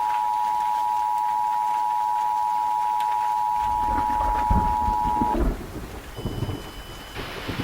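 Emergency Alert System attention signal: a steady two-tone alarm of 853 and 960 Hz sounding together, which cuts off about five seconds in. Low thunder rumbles start underneath about three and a half seconds in and go on after the tone stops.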